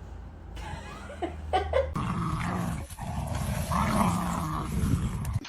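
A dog vocalizing: a few short, high sounds between one and two seconds in, then a longer, continuous vocal sound that wavers in pitch.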